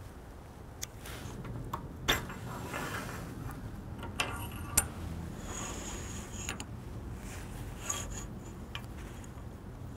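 Steel parts clinking and tapping as a steel shaft is fitted into the coupler on top of a threaded acme rod and worked with a hand tool. There are a few sharp clicks, the loudest about two and five seconds in, and brief ringing metallic notes around the middle and near the end.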